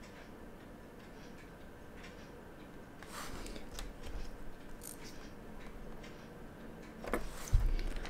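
Small metal watchmaking tools clicking and scraping as they are handled and set down on the workbench, with a louder knock near the end.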